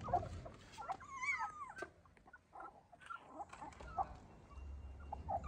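Puppies eating from a shared bowl, with wet smacking and chewing noises. A short high whine from one of the puppies comes about a second in.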